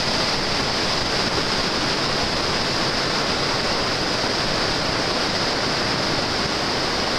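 Whitewater rapid rushing, a steady, even roar of churning water pouring through the rocks.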